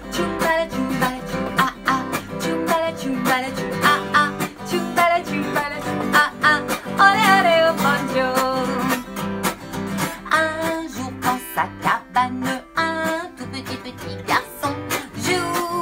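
Acoustic guitar strummed in a steady rhythm, with a woman singing along to it.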